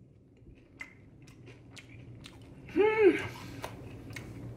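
Crunchy chewing of a mouthful of crisp deep-fried tilapia: a run of short crackling crunches, about four or five a second. About three seconds in comes a brief voiced sound that rises and falls in pitch.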